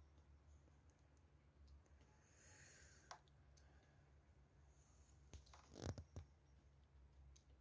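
Near silence: a faint low hum with scattered soft clicks, and a short cluster of louder clicks about six seconds in.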